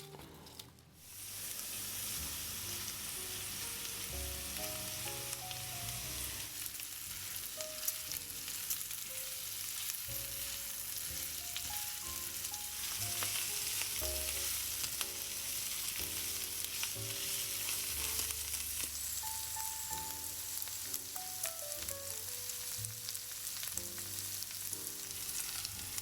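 Food frying in oil in a pan, a steady sizzle that starts about a second in.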